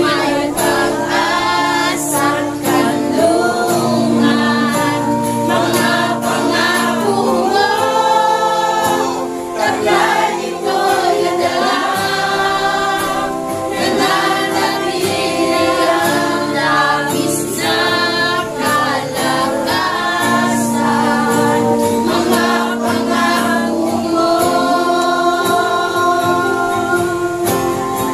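A congregation singing the chorus of a Tagalog worship song together.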